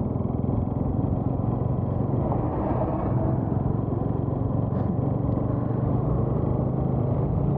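Bajaj Pulsar NS200 single-cylinder motorcycle engine running steadily while riding, mixed with wind noise on the microphone. There is one brief click about five seconds in.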